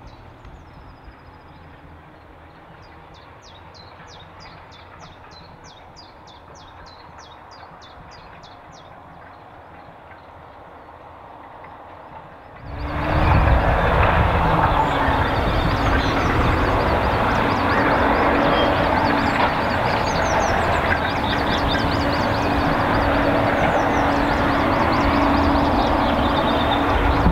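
A small bird sings a run of high chirps, about three a second, over a faint outdoor background. About halfway through, a tractor engine running close by cuts in suddenly and holds steady and loud, drowning out everything else.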